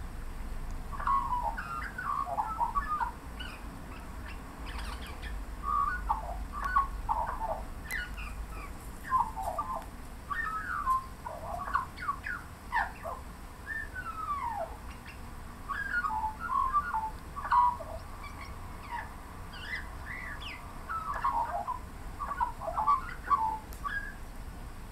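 Australian magpie singing: about five bursts of quick, varied warbling notes with short pauses between them.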